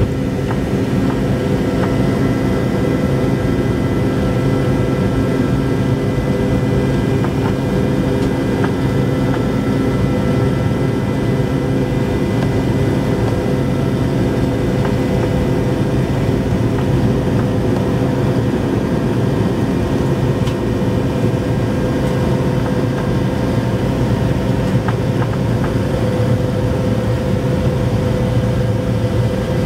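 Cabin noise in a McDonnell Douglas DC-9-51 climbing out after takeoff, its rear-mounted Pratt & Whitney JT8D turbofans at climb power. A steady, even drone with a couple of held humming tones over a low rumble.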